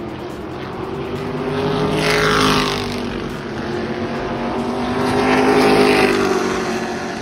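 E-Mod modified race cars' engines at racing speed, their pitch rising and falling as they pass. The sound swells twice, about two seconds in and again near six seconds.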